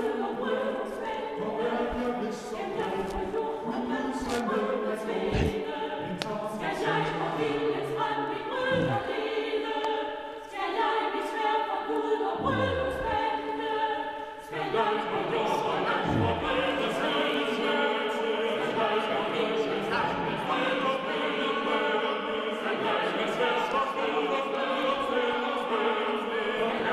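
Choral music: several voices singing held chords, with two brief lulls partway through.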